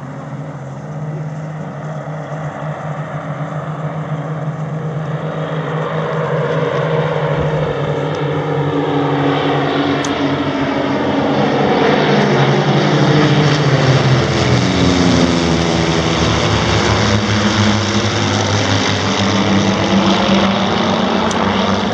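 Four Saab 91 Safir single-engine propeller trainers flying past in formation, their engines a steady drone. It grows louder for about twelve seconds, then the pitch falls as the formation passes overhead and moves away.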